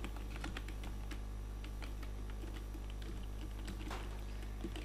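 Typing on a computer keyboard: a quick run of irregular keystroke clicks over a steady low hum.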